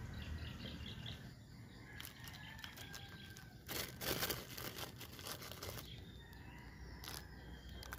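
White paper wrapping crinkling and rustling as a bicycle disc brake rotor is unwrapped, in a run of crackles that is loudest about four seconds in, with one more brief rustle near the end.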